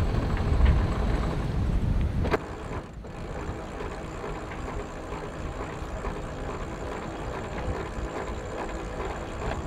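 Wind buffeting the microphone aboard a boat under way for about two seconds, then a sudden drop to a quieter, steady rushing hum with faint steady tones.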